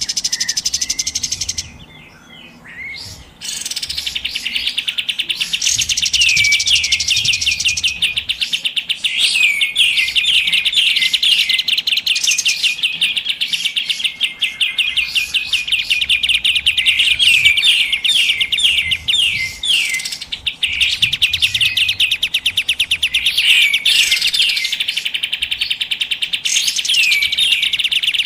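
Kapas tembak bird calls: fast, dense, excited chattering trills repeated almost without pause, with a short lull about two seconds in. This is a lure recording meant to draw in wild birds of the same kind.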